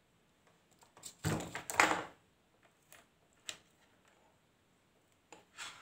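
Handling noise on an electronics workbench: a cluster of knocks and rattles about a second in, then two light clicks.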